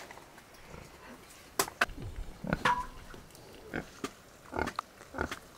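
A pig grunting a few times, with scattered sharp knocks and clatters in between.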